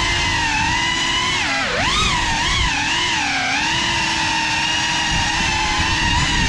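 Whine of a GEPRC CineLog35 cinewhoop quadcopter's brushless motors and ducted propellers, the pitch rising and falling with the throttle, with a sharp dip and recovery about two seconds in.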